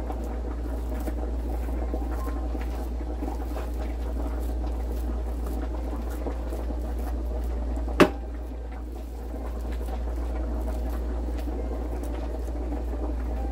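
Hand kneading and pressing raw ground beef in a plate, a steady wet squishing with small clicks. A single sharp click or knock about eight seconds in, over a steady low hum.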